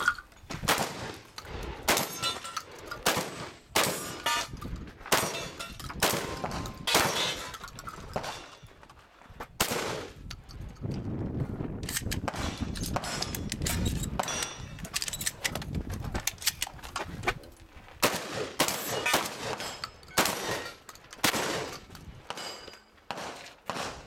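Many shotgun shots fired in quick strings. There is a stretch of several seconds near the middle with fewer shots.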